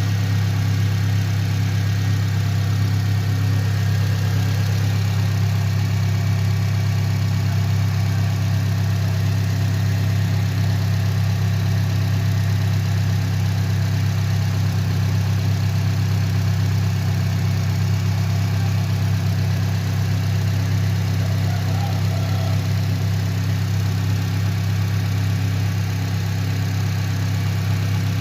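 Honda Accord CM5 four-cylinder petrol engine idling steadily at an even pitch, presented as a healthy engine in good condition.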